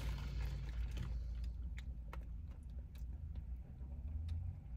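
Faint, scattered small clicks and crinkles of paper food wrappers in hand, over a low steady rumble.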